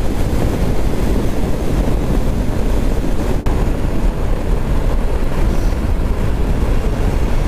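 Steady wind rush over the camera microphone of a motorcycle riding at highway speed, with road and engine noise mixed underneath. It drops out for an instant about three and a half seconds in.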